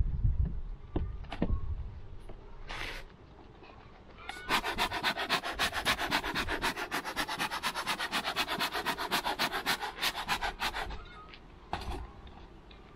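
Quick, even brushing strokes, about six a second for some six seconds, from a soft-bristled bee brush used at the hive. Before them come a few light knocks of wooden hive parts.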